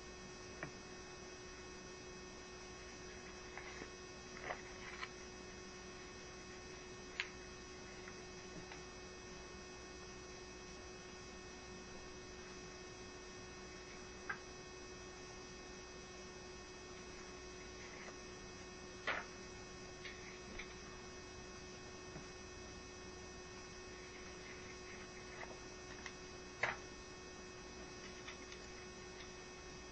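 Steady electrical mains hum with a faint hiss under it, broken now and then by short sharp clicks, the loudest two about two-thirds of the way through and near the end.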